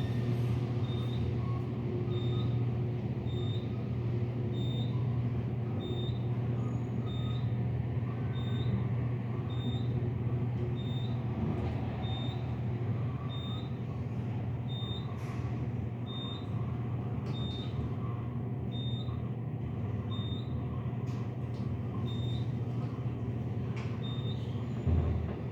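Elevator running with a steady low hum, while a faint short high-pitched beep repeats about once a second.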